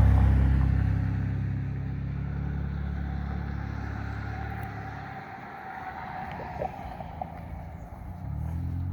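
A motor vehicle's engine humming low, loudest at the start and fading away about five seconds in. A few light clicks follow, and an engine hum returns near the end.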